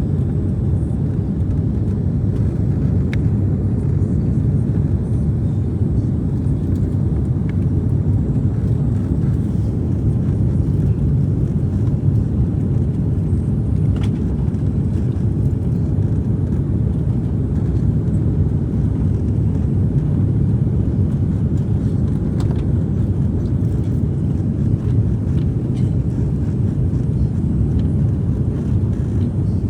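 Airliner cabin in flight: a steady low rumble of engine and airflow noise that does not change.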